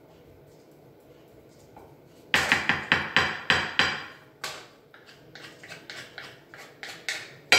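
Wooden spatula knocking against a large glass tart dish while a semolina and vegetable mixture is pressed and spread in it. There is a fast run of sharp knocks, about five a second, for a second and a half, then lighter irregular taps, then one louder clink with a short ring near the end.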